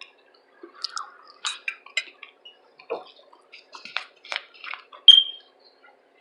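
Chewing food with irregular wet mouth smacks and clicks; a sharp, loud smack about five seconds in.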